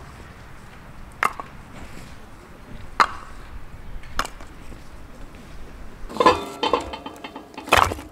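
Firewood being split on a chopping stump: three single sharp chopping strikes, about a second in, at three seconds and at four. From about six seconds on, split blocks of dry wood knock together as they are piled, a hollow clatter with short ringing tones and one loud knock near the end.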